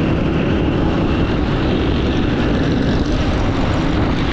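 Motorcycle riding at a steady cruising speed: a constant engine drone mixed with wind and road noise on the rider's camera microphone.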